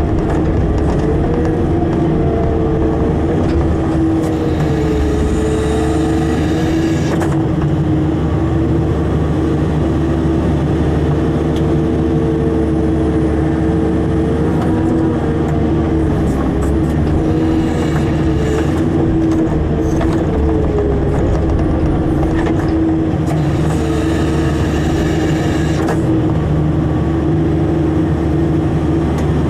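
Caterpillar hydraulic excavator's diesel engine and hydraulic system running steadily under working load, heard from the cab as the bucket spreads and levels soil. Its steady note wavers slightly as the load changes, and several stretches of brighter hiss come and go, each lasting two or three seconds.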